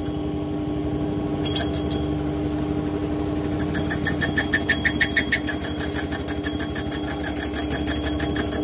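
Small metal lathe running with its cutting tool turning the inside of a motorcycle brake drum: a steady motor hum. A fast, regular ticking of the cut joins about three and a half seconds in.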